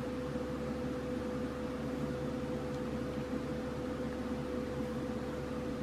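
Steady background hum and hiss with one constant mid-pitched tone, like a fan or small appliance running.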